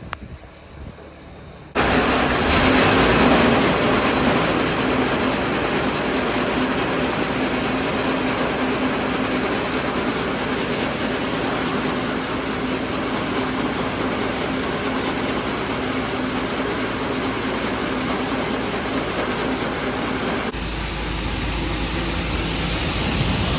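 Grain auger running with soybeans from a gravity wagon pouring through it, a steady loud mechanical rush and rattle that starts suddenly about two seconds in.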